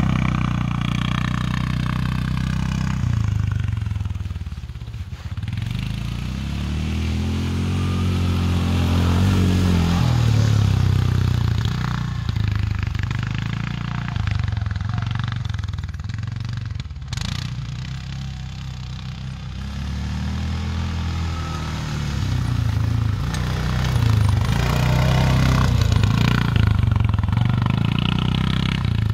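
Quad bike (ATV) engine running as the machine rides laps across a grassy field, its pitch and loudness swelling and falling repeatedly as it speeds up, slows and turns.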